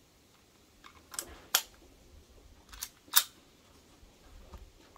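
Two pairs of sharp metallic clicks from a Canik 9mm pistol being loaded and made ready.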